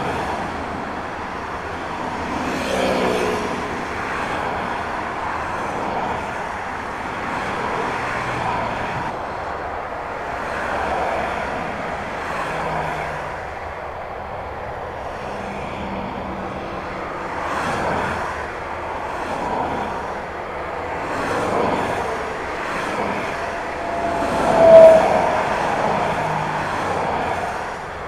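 Twin-engine jet airliner engines running on the runway: a steady rumbling roar that swells and eases as the aircraft taxis and begins its takeoff run. About three-quarters of the way through, a brief sharp tone rises above it as the loudest moment.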